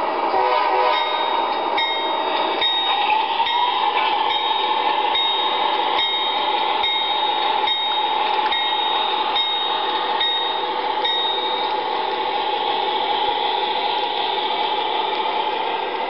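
An MTH model locomotive's onboard sound system rings its bell, about one strike a second for some ten seconds, then stops. Under it runs the steady sound of the locomotive and its cars rolling on the track.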